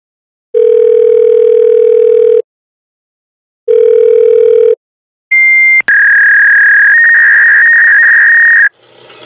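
Dial-up modem connecting over a telephone line. A steady dial tone sounds twice. Then comes a high answer tone, a click, and the modem's high two-note handshake tone with crackling hiss, which cuts off suddenly near the end.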